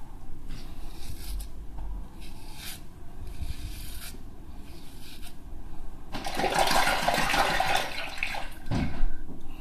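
Cartridge razor scraping up through shaving foam on the neck in several short strokes. About six seconds in comes a two-second burst of splashing water as the razor is rinsed in the sink, then a short knock near the end.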